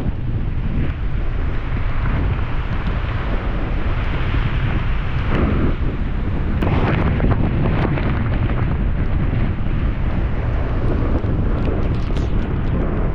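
Strong wind buffeting the action-camera microphone in a steady low rumble as a mountain bike rides a rough trail, with short knocks and rattles scattered through it.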